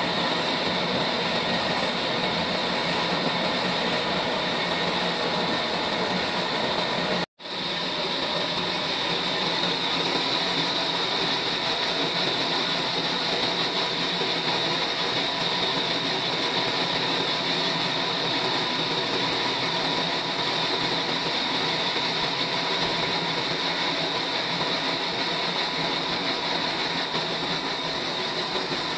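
Sawmill trolley machine running steadily as it saws mulberry wood, a dense mechanical whir with a steady hum. The sound cuts out completely for an instant about seven seconds in, then resumes unchanged.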